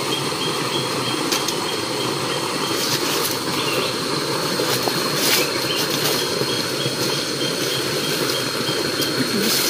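Steady outdoor rushing noise, with a high, short chirp repeated about three times a second in two runs: one over the first few seconds and one near the end.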